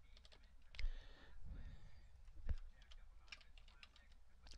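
Faint computer keyboard keystrokes, a handful of separate clicks spread out with short gaps between them.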